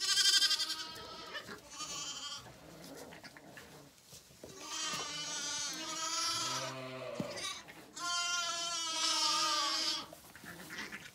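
Bottle-fed Zwartbles lambs bleating at feeding time: repeated long, wavering calls, the loudest at the very start and from about eight to ten seconds in.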